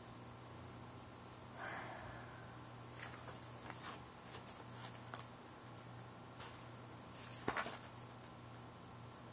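Quiet room tone with a faint steady low hum, broken by a few faint rustles and soft clicks of small handling movements.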